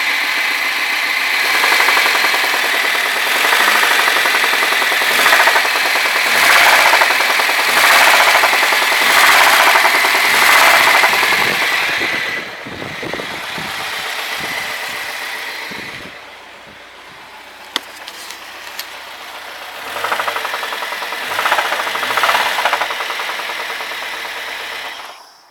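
An engine running with a rapid knocking rattle. It gets louder in surges for the first half, eases off, swells again about twenty seconds in, and stops near the end.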